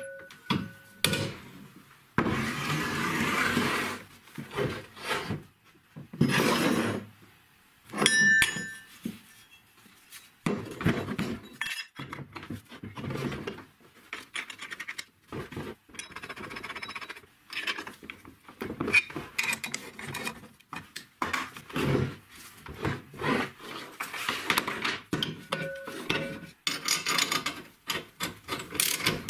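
Steel workshop parts and an angle grinder that is not running, handled and fitted together on a wooden workbench: irregular rubbing and scraping of metal on metal and on wood, with short clinks.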